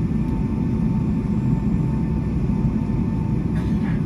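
Cabin noise of a Boeing 757-200 taxiing, its Pratt & Whitney PW2037 engines at taxi power: a steady low rumble with a faint steady whine over it.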